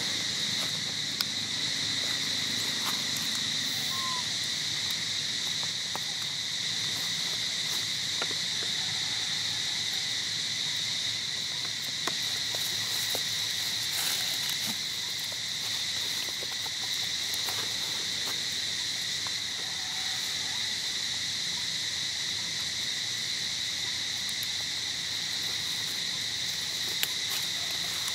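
Steady chorus of insects: a continuous high-pitched drone that holds level throughout, with a few faint clicks here and there.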